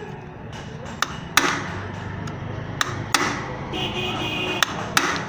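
T-handle socket wrench clinking on the clutch pressure-plate bolts of an opened motorcycle clutch: about six sharp metallic knocks at irregular intervals, with a steady low hum underneath.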